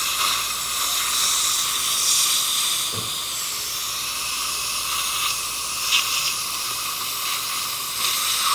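Dental suction tip hissing steadily as it draws blue tooth-prep gel off the teeth before braces are bonded, with a couple of short clicks along the way.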